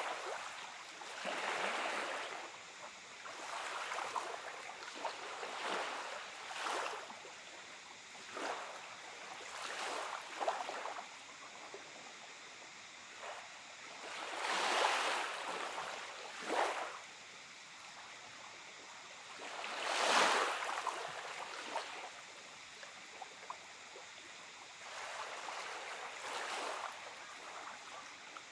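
Small waves lapping and washing up a pebbly shore of a calm bay, one soft wash every second or two, with two louder washes a little past halfway.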